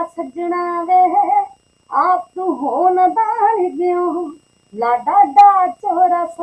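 A woman singing a Punjabi song solo and unaccompanied, in long melodic phrases with two short breaks for breath between them.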